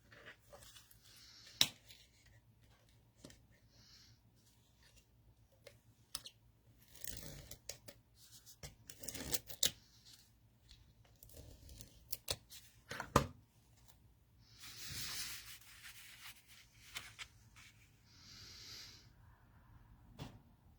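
Quiet paper-craft handling: scattered taps and clicks, with a few short scratchy rustles as the sticky backing is peeled off a plastic heart embellishment and the heart is pressed onto a cardstock card. The longest rustles come about two-thirds of the way through and again near the end.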